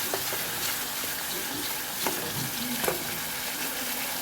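Chili sauce of oil, chili and tomato sauce sizzling in a pot on the stove while it is stirred, with a steady hiss and a few sharp clicks of the ladle against the pot.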